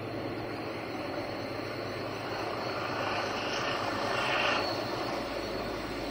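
Diesel engines of two heritage diesel-electric locomotives, 4520 and 4490, working a charter train up the grade as it approaches. The steady drone grows louder, peaking about four and a half seconds in.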